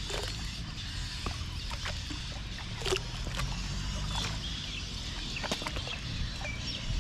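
Light water splashes, drips and small clicks as a gill net is hauled by hand out of the water into a wooden outrigger canoe, over a steady low rumble.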